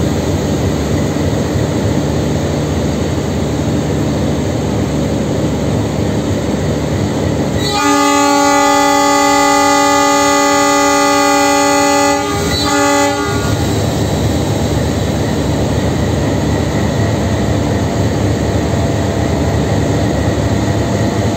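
ALCO-built WDM3A diesel locomotive's 16-cylinder engine running steadily, with the departure horn sounded about eight seconds in: one long blast of about four seconds, then a short second toot just after. The long horn blast is the loudest sound.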